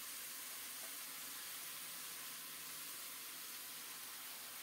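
Vegetables frying in mustard oil in an aluminium kadai: a faint, steady sizzle with no crackles or knocks.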